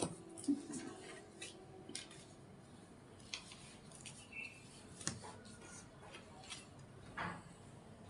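Tarot cards being shuffled and laid out by hand on a cloth-covered table: faint, scattered light taps and flicks of card against card, about ten over the stretch.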